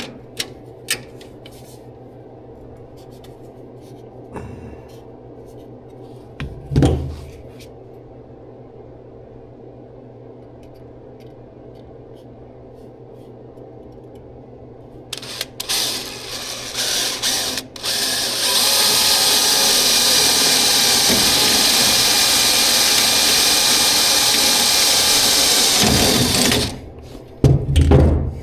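A handheld power tool worked on the car's dash metal: a few short bursts, then a steady run of about eight seconds that cuts off, with a couple of knocks just after. Before it, a stretch of low steady hum with scattered clicks and one thump.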